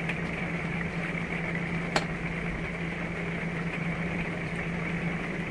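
Steady low machine hum with one sharp click about two seconds in.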